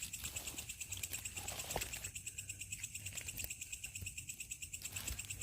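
Night insects chirping in a steady, rapid pulse, about five to six a second, over a faint low hum.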